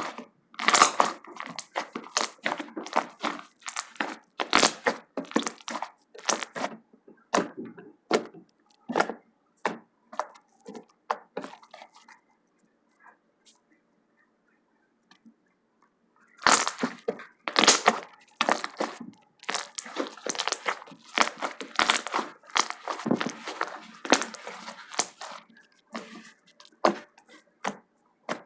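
Slime being squeezed and pressed by hand, giving rapid crackling pops and clicks. There is a pause of a few seconds about halfway through, then the popping starts again.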